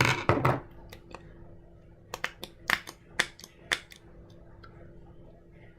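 Close handling of small hard parts: a rustling knock at the start, then a string of about six sharp light clicks and taps over a couple of seconds, as of a screwdriver and plastic or metal parts of a model train being handled.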